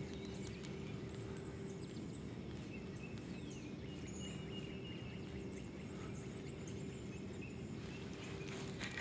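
Quiet outdoor ambience: a steady low hum with scattered faint, high bird chirps.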